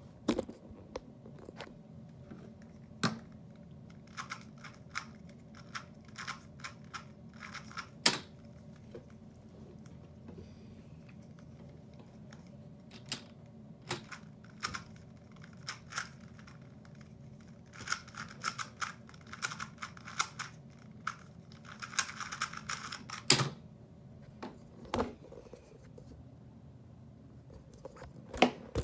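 GAN 249 v2 2x2 speed cube being turned by hand: irregular runs of plastic clicking turns that get fast and dense in the last third, broken by a few sharper knocks, the loudest near the end.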